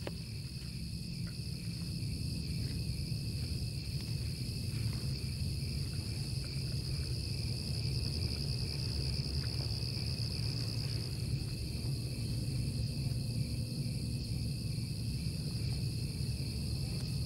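Night insects, crickets among them, chirping in a steady high-pitched drone over a low, even rumble.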